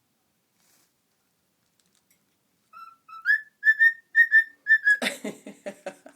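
Cockatiel whistling a short phrase of clear notes that step upward in pitch, starting nearly three seconds in, then breaking into a quick stuttering chatter about a second before the end.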